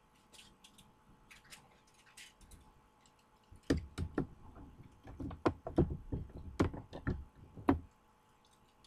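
Die-cast toy cars being handled and set down on a hard surface: faint light ticks at first, then a quick run of about a dozen sharp knocks and clicks.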